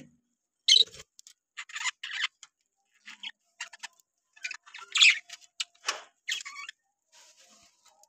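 Budgerigars chirping and chattering in short, irregular bursts of high-pitched calls.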